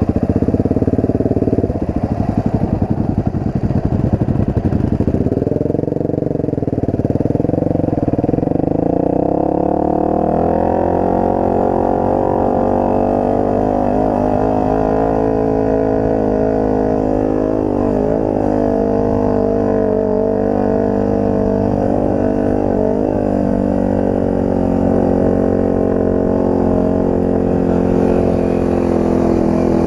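Off-road motorcycle engine, uneven and chugging at low revs for the first several seconds. Then it picks up and runs steadily at higher revs.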